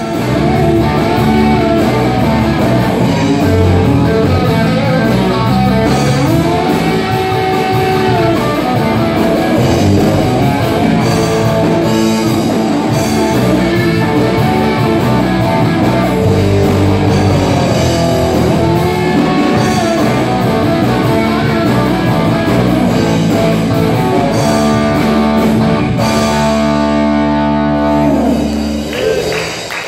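Live rock band playing an instrumental passage on electric guitars, bass and drum kit, a lead guitar line bending notes up and down. The band lands on a held chord and stops just before the end.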